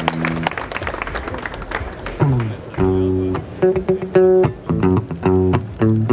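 Applause dying away, then a Gibson electric guitar begins to play: a low note slides down at about two seconds, then clear sustained notes and chords ring out from about three seconds in.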